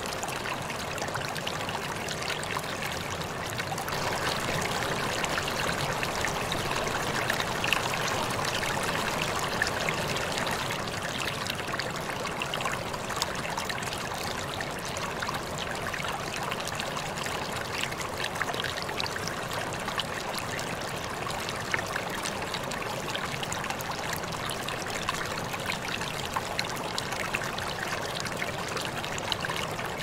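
Stream water rushing and splashing over rocks in a steady, continuous flow, a little louder from about four seconds in, with small splashes scattered through it.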